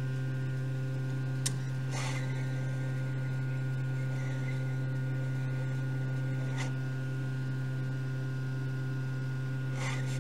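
Steady low electrical hum, with a few faint clicks, at about one and a half, two, six and a half and ten seconds.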